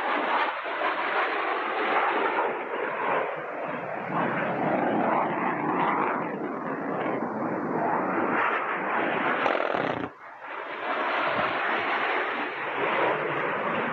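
Continuous jet noise from a Panavia Tornado's twin RB199 turbofans as the jet passes over the range, a dense rushing roar that dips briefly about ten seconds in and then builds again.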